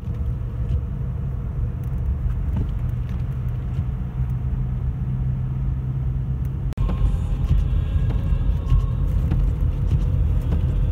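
Four-wheel-drive car driving on a snow-covered road, heard from inside the cabin: a steady low rumble of engine and tyres, with a brief dropout about seven seconds in.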